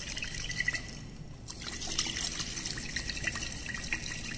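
Water trickling and splashing inside a glass conical flask, with many small irregular clicks, as the cooled reaction mass is dissolved in a little water.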